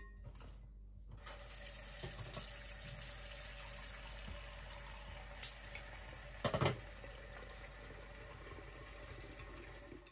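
Kitchen tap running into a glass vase in a stainless steel sink, a steady flow of water that starts about a second in. A few sharp knocks come midway, a single one and then a louder pair about a second later.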